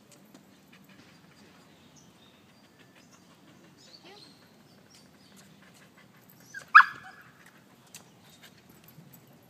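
A dog barks once, a short sharp bark nearly seven seconds in, with a smaller sound just before it. Otherwise only faint background with scattered light ticks.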